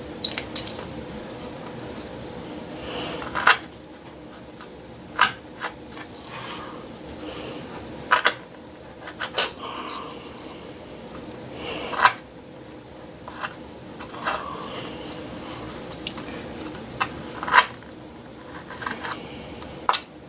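Razor knife cutting through felt on a wooden board: a dozen or so sharp, irregular clicks and taps as the blade strikes the wood and the steel backing, with soft scraping strokes in between.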